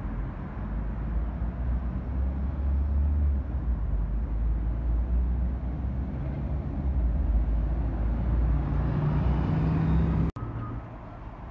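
Diesel engines of single-deck buses pulling away and turning past, a steady low engine drone. It breaks off suddenly about ten seconds in, and quieter street noise follows.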